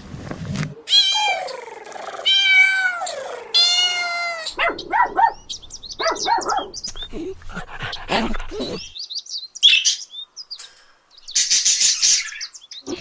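A domestic cat meows three times in drawn-out calls that bend in pitch. These are followed by a quick run of many short, high calls and a brief rasping noise near the end.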